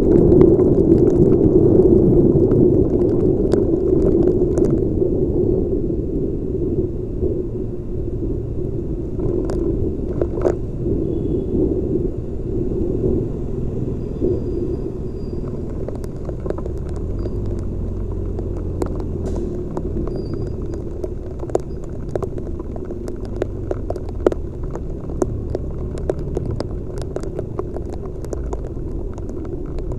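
Muffled rumble of a motorcycle ride in heavy rain, heard through a helmet camera's microphone, louder in the first few seconds, with scattered sharp ticks throughout.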